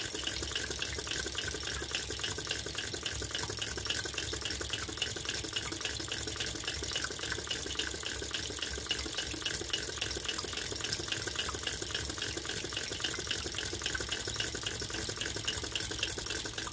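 Vintage Empire toy water pump, belt-driven by a Tarot Stirling engine, running steadily and pouring a trickling stream of water from its brass spout into its tray. A rapid, even ticking of the running mechanism, about five a second, goes along with it.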